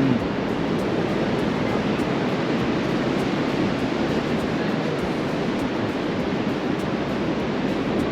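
Ocean surf: a steady rushing wash of waves.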